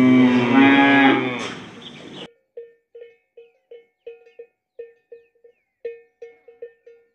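A cow mooing, one long low moo that fades out about a second in, over outdoor background noise that cuts off suddenly a second later. Then a light tune of short plucked notes starts.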